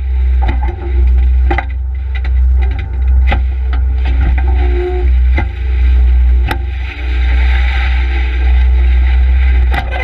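Case skid-steer loader working sand and dirt: its engine runs loud and steady under load, with frequent sharp knocks and clanks. The running noise grows fuller from about seven seconds in to near the end.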